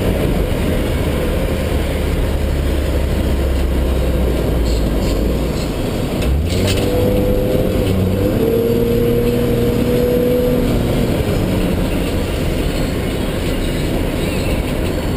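Inside the cabin of a Jaguar saloon driven hard on a race track: loud engine and road noise at speed. About six seconds in there is a short break and the engine note changes, then it holds a steady tone for a few seconds.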